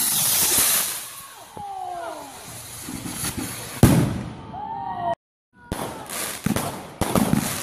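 A firework rocket launching with a rushing hiss, then bursting with a sharp bang about four seconds in. After a brief dropout, a run of smaller bangs and crackles follows from further firework bursts.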